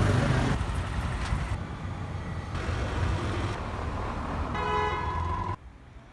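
Road traffic running steadily, with a vehicle horn sounding once for about a second near the end before the sound cuts off abruptly.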